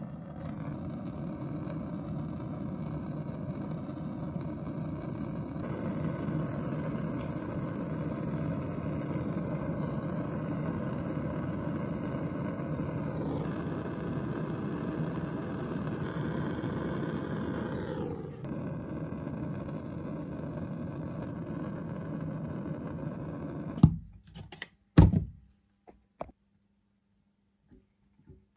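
A machine running steadily, its pitch dropping a little twice, then stopping suddenly, followed by a few sharp knocks.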